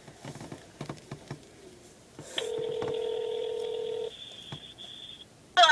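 Cell phone on speaker playing the ringback tone of an outgoing call: one steady ring of about two seconds, after a few faint taps.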